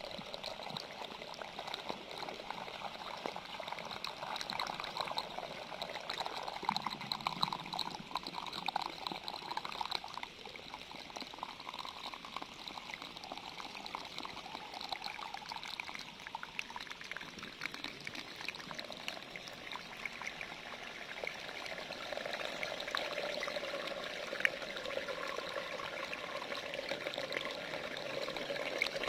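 Aquarium water bubbling and trickling steadily, with many small pops and splashes.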